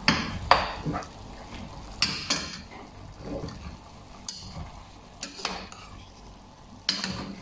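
Metal slotted spoon stirring chunks of bottle gourd in a cooking pot, with irregular scrapes and knocks of the spoon against the pot.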